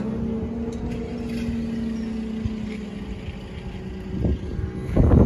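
Level crossing barrier mechanism humming steadily as the booms rise, fading out about three seconds in as the barriers reach the upright. Knocks and rustling follow near the end.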